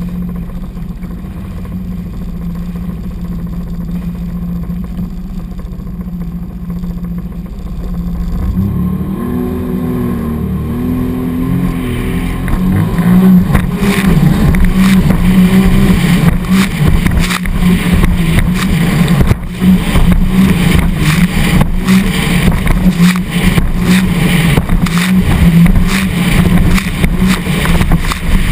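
Sea-Doo 255 personal watercraft's supercharged three-cylinder Rotax engine running steadily, then speeding up with a rising pitch about nine seconds in and getting louder. At speed the hull slaps through choppy waves with splashing spray.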